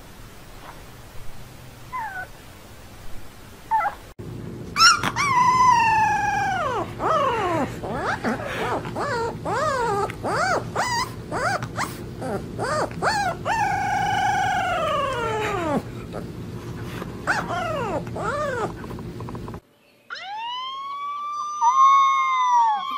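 Husky puppy howling in a long run of rising-and-falling cries, some drawn out, some short, over a steady hum. Before it come a few faint squeaks from a newborn puppy. After a brief break near the end, another set of arching wails begins.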